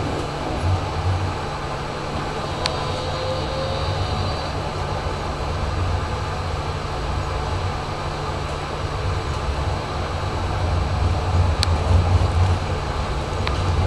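Tram running along street track, heard from inside near the driver's cab: a steady low rumble with a few sharp clicks from the wheels and track, and a faint brief high tone about three seconds in.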